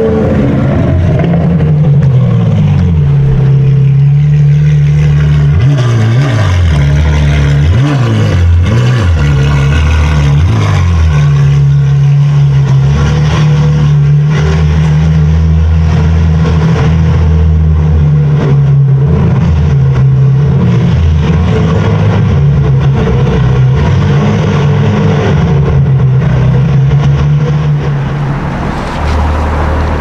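Supercar engine and exhaust running close by at low revs, loud. The note rises and dips several times in the first ten seconds, then holds at a steady low drone, and starts to fade near the end.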